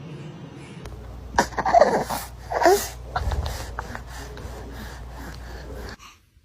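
A baby fussing, with breathy snorts and short whimpers that fall in pitch, over a low steady hum that cuts off suddenly near the end.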